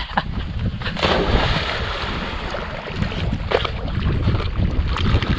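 Water splashing and sloshing as a dog wades in to retrieve plastic bottles, over a steady rumble of wind on the microphone.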